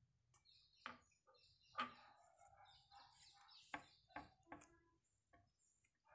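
Near silence: faint chirping from birds in the background, with a few soft, brief taps and clicks from handling.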